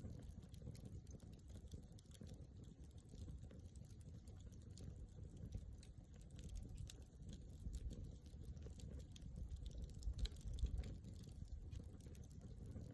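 Wood campfire crackling faintly, with many small irregular pops over a low rumble.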